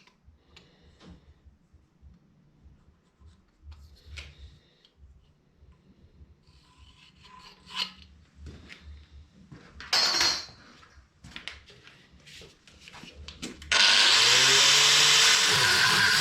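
Scattered faint knocks and handling sounds in a workshop, with a short louder noisy burst about ten seconds in. About fourteen seconds in, a motor-driven machine switches on suddenly, its pitch rising as it spins up, then runs loud and steady.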